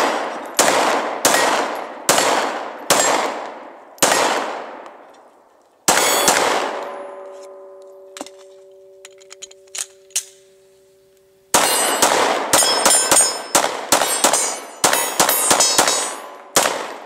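Glock 19 Gen 4 9mm pistol firing at steel targets, cycling without a stoppage. First come six shots a little under a second apart. The last leaves a steel plate ringing for several seconds with a couple of faint metallic clicks under it. Then comes a fast string of a dozen or so shots, each hit on steel clanging.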